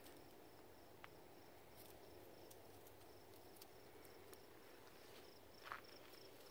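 Faint, even chirping of an insect, a high-pitched pulse repeating about three times a second, with a couple of soft ticks and a brief rustle near the end.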